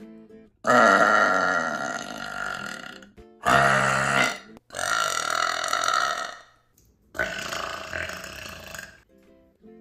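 Four long, loud burps from a person in quick succession, the first lasting over two seconds and trailing off. Faint steady music sits in the short gaps between them.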